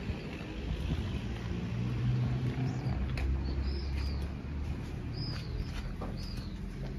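Small birds giving short high chirps, about five in the second half, over a steady low engine hum, with a few light footsteps.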